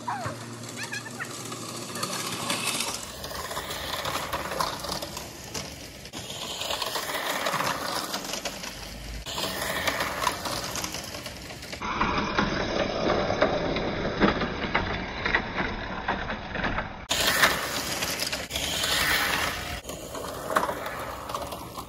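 Fiskars StaySharp Max push reel mower's spinning reel whirring and clattering as it cuts grass, swelling and fading in repeated passes.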